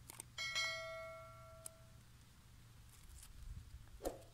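Subscribe-button sound effect: a couple of mouse clicks, then a bright bell-like ding that rings out and fades over about a second and a half. A short knock comes near the end.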